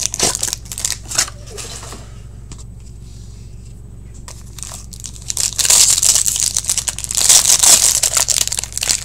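Foil wrapper of a hockey card pack being crinkled and torn open by hand. A few sharp crackles of handling at first, a lull of about three seconds, then steady dense crinkling and tearing from about five and a half seconds in.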